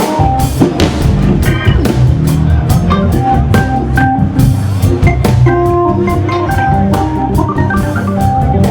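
Hammond organ playing a soul-jazz groove over a drum kit, with short held organ notes against steady drum strikes.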